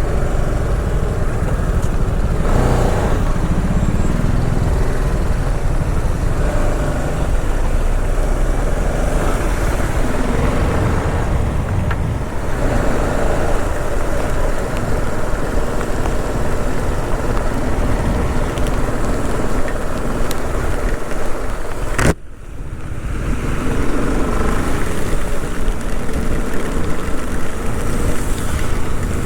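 Motorcycle ride noise: the engine running under heavy wind and road noise on the camera microphone, among surrounding traffic. A sharp click and a brief dip in level come about two-thirds of the way through.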